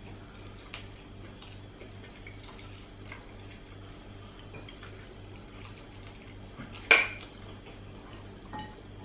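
Light clinks of plates and tableware as barbecued meat is picked apart by hand, with one sharper, louder clink about seven seconds in. A steady low hum sits underneath.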